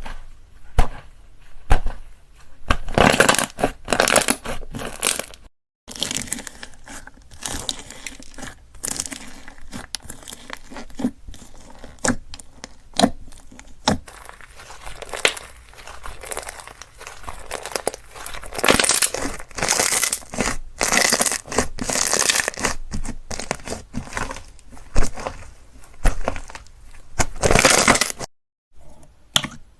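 Slime being squeezed, poked and stretched by hand, giving a run of irregular crackling pops and clicks. It breaks off twice in short silences where one clip cuts to the next.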